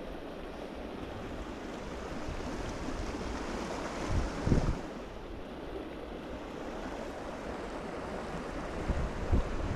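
River current rushing steadily, with brief low thumps on the microphone about four and a half seconds in and again near the end.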